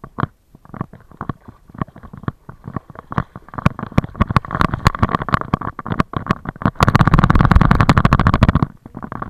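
Rubbing and knocking of a camera strapped to a dog as the dog moves about: irregular clicks that grow denser, then a loud, dense rattle for about two seconds near the end.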